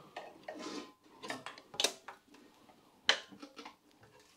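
Metal clanks, clicks and scraping as a Citroën Méhari's engine is worked loose by hand from its chassis: several sharp knocks, the loudest about three seconds in.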